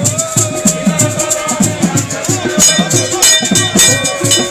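Ekpe masquerade music: drums beating a fast, steady rhythm of about three strokes a second, with rattles shaking over it.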